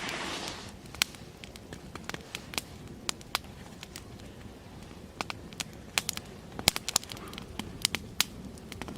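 Wood fire crackling, with irregular sharp pops that come thicker and louder in the second half, and a brief hiss right at the start.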